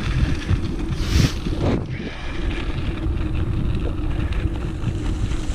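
Wind buffeting the microphone of a camera on a moving gravel bike, a steady rumble with a louder gust about a second in.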